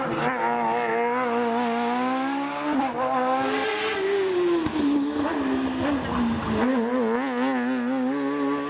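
Racing car engine at high revs on a slalom course. Its pitch holds steady, rises sharply about three and a half seconds in, falls back, then wavers up and down near the end.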